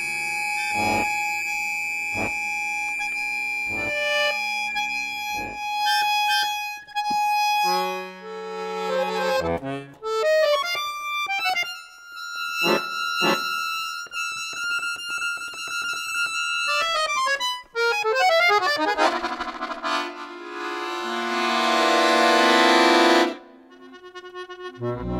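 Chromatic button accordion playing contemporary music alongside an electronic tape part. Held tones and chords, with sharp clicks in the first few seconds, give way to a quick falling run, then a loud dense cluster chord that swells for a few seconds and cuts off suddenly near the end.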